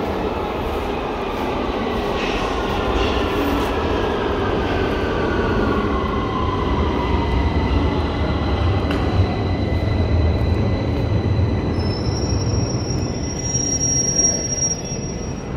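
London Underground train in the station tunnel: a deep rumble that builds through the middle, a whine that falls in pitch over the first half, and a high squeal near the end.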